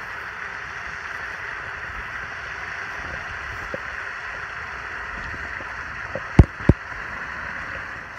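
Steady rushing of a pond fountain's spray, with two sharp thumps about six and a half seconds in.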